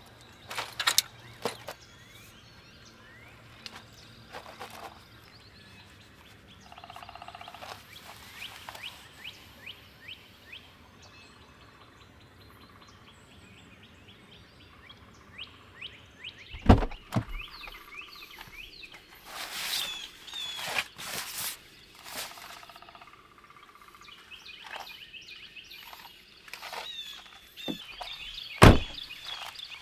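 Birds singing in the background, many short downward chirps, over the handling of camp gear beside a vehicle: rustling, and two sharp thunks, one about halfway through and one near the end.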